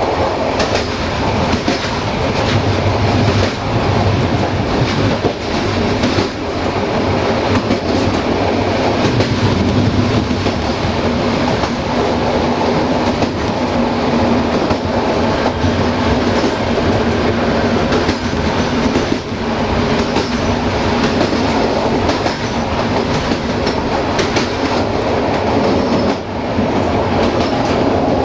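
Passenger train coach running along the line: a steady rolling rumble with wheels clattering over the rail joints.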